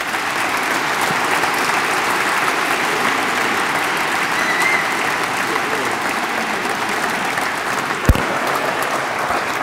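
A large audience applauding steadily, with one sharp thump about eight seconds in.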